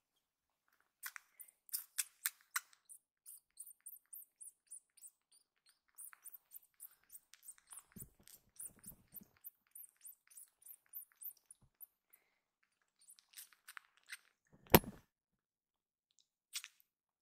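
A baby tabby kitten sucking and mouthing on a finger: runs of small clicking sounds, a few a second, with one sharp knock about fifteen seconds in.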